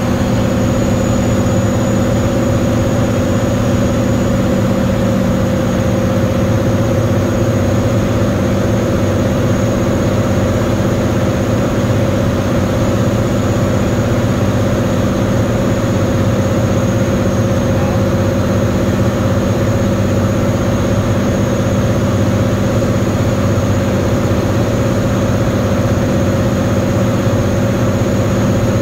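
Single-engine propeller airplane's piston engine and propeller droning steadily, heard inside the cockpit on final approach, with rushing air noise beneath.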